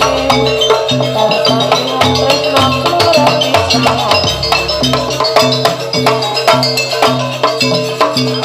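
Live jaranan barong ensemble music: drums and pitched metal percussion keep a steady, driving beat under a wavering melody line.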